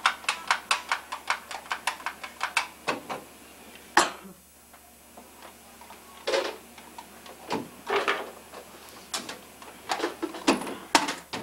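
Hard plastic toys clicking and knocking as a toddler handles them. A quick, even run of clicks, about five a second for three seconds, is followed by one sharp knock, then scattered clatter and knocks of toys moved about in a plastic toy box.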